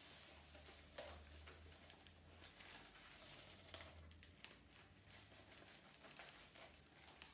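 Sand poured from a paper bag into the cut-off bottom of a plastic 2-liter soda bottle, faint, with a few light clicks from handling the bag.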